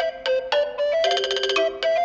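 Background music: a bright, bell-like melody of struck notes, with a quick run of rapidly repeated notes about a second in.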